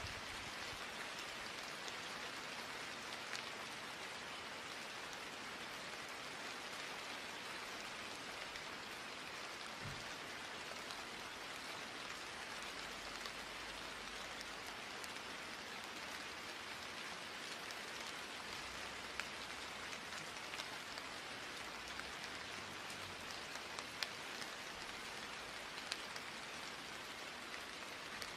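Steady rain falling, an even hiss with a few sharper single drop ticks scattered through it.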